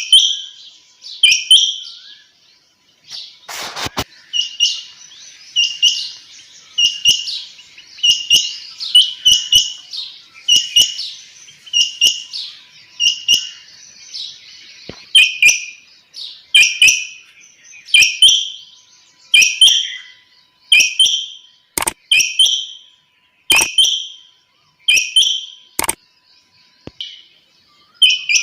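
Female quail (batair) calling over and over, a short chirping call about once a second. A few sharp clicks are mixed in.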